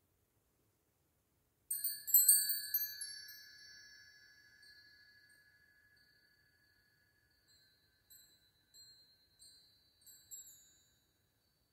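Bar chimes (a Mark tree of hanging metal bars) set ringing about two seconds in: a shimmering cluster of high bell-like tones that slowly fades. A few soft single tinkles follow near the end.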